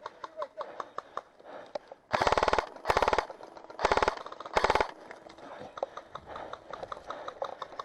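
G&P M249 airsoft electric gun firing four short full-auto bursts in quick succession, about two to five seconds in.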